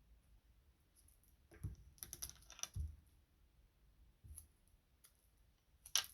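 Faint clicks and light rustling of hands handling small nail-care items, a cluster of ticks about a second and a half in and a sharper click near the end.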